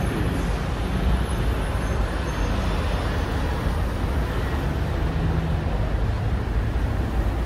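Street traffic: city buses and cars with a steady low rumble of engines.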